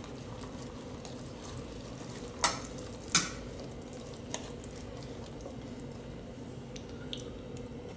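A fork stirring a pasta dish in a metal pot, a soft wet mixing sound with a few sharp clinks of the fork against the pot about two and a half, three and four and a half seconds in, over a steady faint hum.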